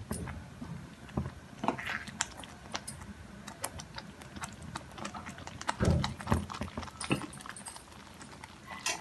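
A wooden spatula stirring thick tomato dal in a steel pan, with soft scraping and scattered light clicks against the pan. A couple of louder knocks come about six seconds in.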